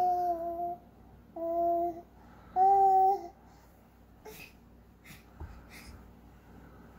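A baby vocalizing in three drawn-out, steady-pitched sounds over the first three seconds, followed by only a few faint soft noises.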